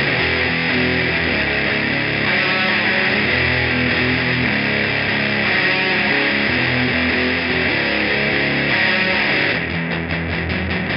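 Heavily distorted electric guitar playing a crushing alt-rock riff of ringing, sustained chords. Near the end it changes to fast, evenly picked chugging strokes.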